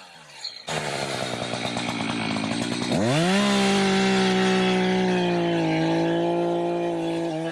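Echo two-stroke chainsaw comes in abruptly about a second in, running rough at low revs. Around three seconds in it is throttled up to high, steady revs, dips slightly in pitch, and drops off right at the end.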